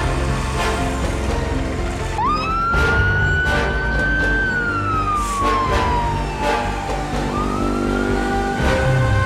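Fire pumper's siren wailing: it sweeps up about two seconds in, holds high, falls slowly, then rises again near the end. Background music with a steady beat plays under it throughout.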